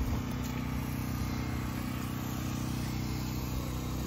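A machine running steadily with a low, even hum.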